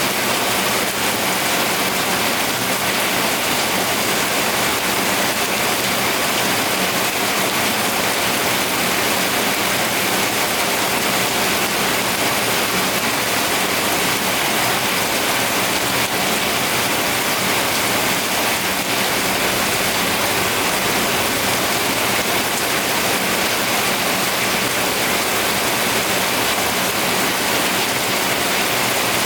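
Steady rainfall, an even, unbroken hiss with no change in strength.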